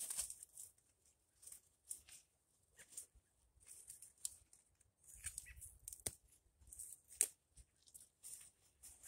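Kale leaves being snapped and torn off their stalks by hand, with faint intermittent crisp rustling of the leaves and two sharper snaps about six and seven seconds in.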